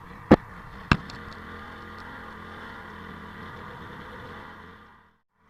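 A fire brigade's engine running steadily on test, with two sharp knocks near the start; the sound fades out shortly before the end.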